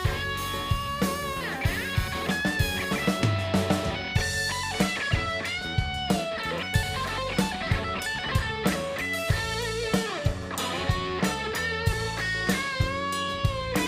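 Live funk band playing an instrumental passage: an electric guitar plays a lead of held, bending notes over a steady drum-kit beat.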